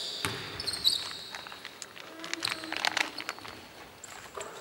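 Basketball game play on a hardwood court: sneakers squeaking in short high chirps near the start, then the ball and players' feet knocking on the floor, with a flurry of knocks about two and a half seconds in.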